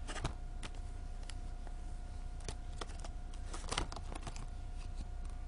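Light, irregular clicks and taps from things being handled, some in quick clusters, over a faint steady electrical hum.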